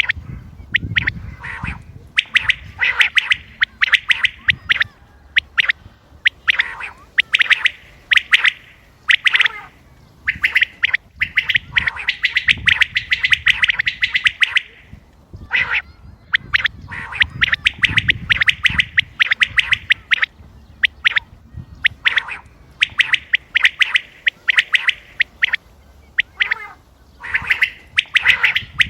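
Common quail calling over and over: bursts of rapid, sharp high notes lasting one to a few seconds, with short pauses between them.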